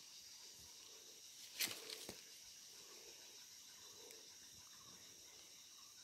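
Faint rainforest ambience: a steady high hum of insects, with a sharp crackle about one and a half seconds in and a couple of smaller ones just after.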